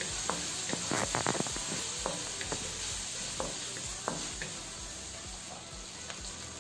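Onion, garlic and cilantro stems frying gently in oil and butter in a pan, a steady sizzle. A wooden spatula stirs through them, with scattered light taps and clicks that are thickest about a second in.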